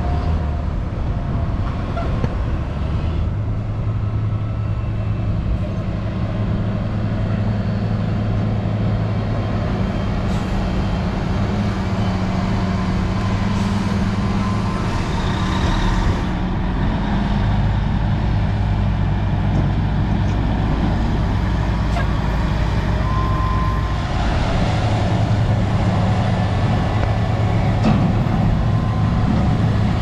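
Diesel engines of large farm tractors running steadily under load while pushing and packing chopped corn silage on a pile.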